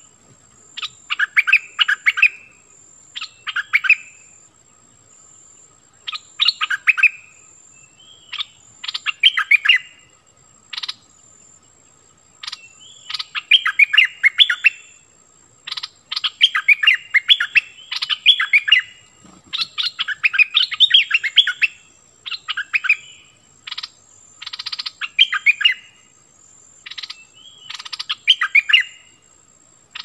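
Puff-backed bulbul kept as a caged decoy, singing short bubbly warbled phrases every second or two. A thin, steady, high-pitched tone runs faintly behind the song.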